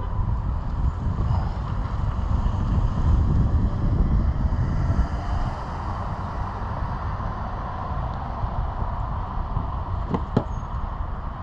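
Steady low rumble of road traffic, swelling briefly in the middle, with two short clicks a little after ten seconds in.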